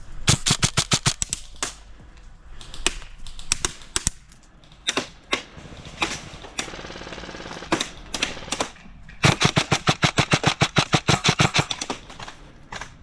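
Airsoft electric rifle (VFC Avalon Saber CQB AEG with an upgraded high-speed gearbox) firing: a rapid burst at the start, a few single shots, then a longer full-auto burst of about three seconds near the end.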